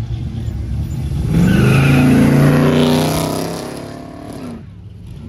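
A car engine revving hard as it accelerates away and passes, swelling to its loudest about two seconds in with the pitch climbing, then fading and cutting off near the end. Before it there is a low rumble of idling engines.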